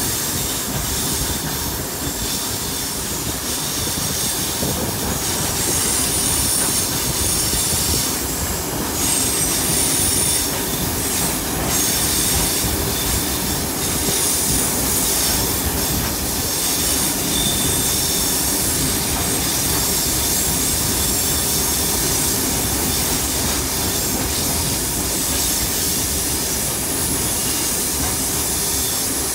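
Steady rumble of a train carriage's wheels running on the rails, heard from the carriage window, with high-pitched wheel squeal coming and going.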